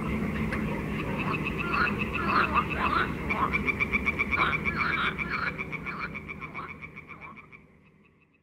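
A chorus of frogs calling: a fast, even pulsing trill over a scatter of lower croaks. It fades out near the end.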